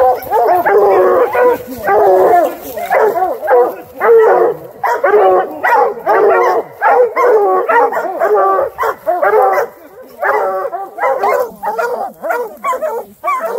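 A pack of bear hounds barking and bawling together, dense and overlapping without let-up. This is the tree bark that signals the hounds have a bear treed.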